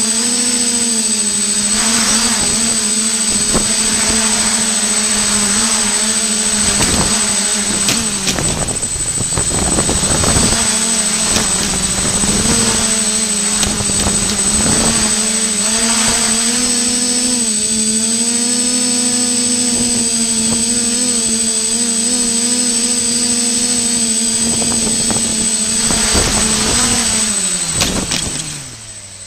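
FPV racing quadcopter's motors running at low throttle, a steady whine that wavers in pitch, then spinning down and stopping near the end.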